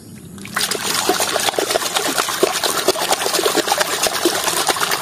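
A brush scrubbing a plastic toy dump truck in a tub of thick muddy water: rapid wet scrubbing and splashing that starts about half a second in.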